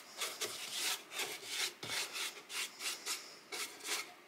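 Paintbrush bristles dragging over wood as milk paint is brushed on, in quick back-and-forth strokes, about three or four a second.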